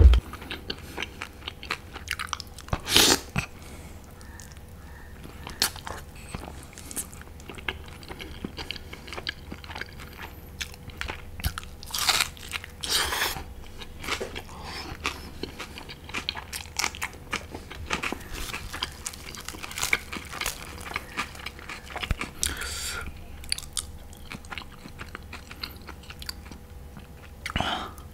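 Close-miked chewing and biting of butter naan with mutton curry: a run of small mouth clicks, with a few louder moments about 3, 12 to 13 and 23 seconds in.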